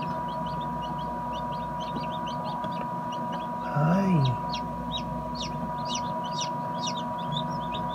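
Newly hatched chicken chicks peeping: many short, high, falling peeps, several a second, growing stronger in the second half, over a steady hum.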